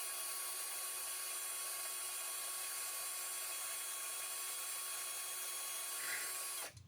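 Power drill running at a steady speed, pre-drilling a pilot hole into a 3D-printed PLA part, then stopping near the end.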